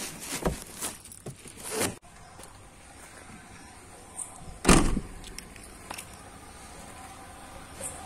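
Rustling and knocking of handling in the first two seconds, then one heavy thump about halfway through: a Maruti Suzuki Vitara Brezza's door being shut.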